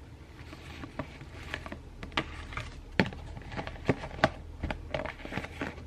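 Plastic food container being handled: a sandwich half pushed into a clear plastic tub and its blue lid pressed down and snapped on, giving a string of sharp clicks and taps, the loudest about three and four seconds in.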